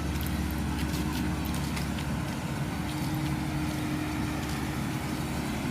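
Combine harvester engine running steadily, with a constant low hum and a few faint clicks over it.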